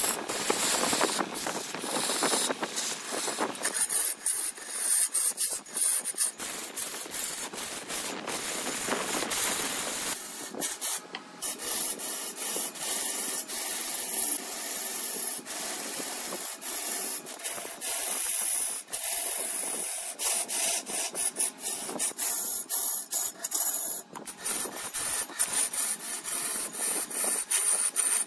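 Wood being worked on a spinning wood lathe, a cutting tool or abrasive against the turning wood, making a steady high scraping hiss. It is broken by many short dips throughout.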